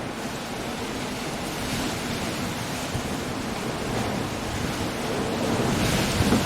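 Stormy sea surf breaking against a rocky coast, a steady rushing wash with wind, swelling into a louder breaking wave near the end.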